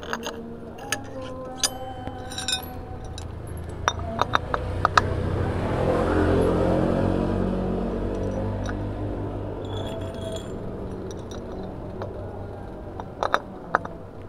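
Scattered sharp clinks of hard objects knocking together, a few in quick succession. A low rumble swells about six seconds in and then slowly fades.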